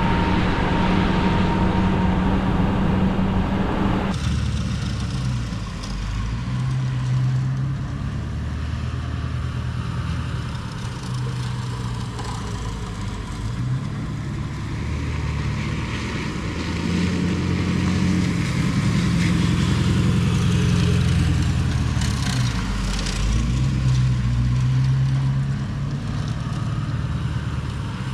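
Ford Super Duty truck's engine running as the truck drives, its pitch rising and falling with speed several times. The sound changes abruptly about four seconds in.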